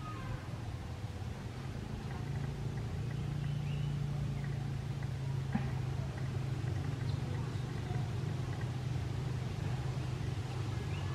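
A low, steady engine hum that grows louder over the first few seconds and then holds, with a few faint, short high chirps over it.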